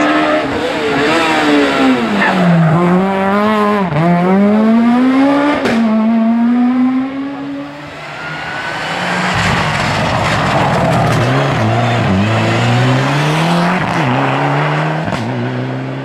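Rally car engines at full throttle on a stage. One car's revs fall and rise hard through a corner, with a sharp crack about six seconds in. Then a second car approaches, its revs climbing and dropping again and again as it accelerates.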